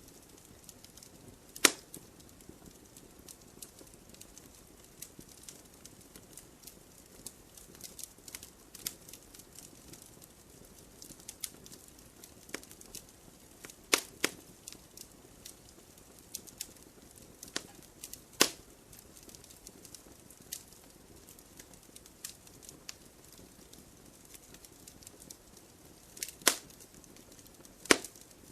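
Campfire crackling: a steady scatter of small snaps over a faint hiss, with a handful of sharp, loud pops from the burning wood.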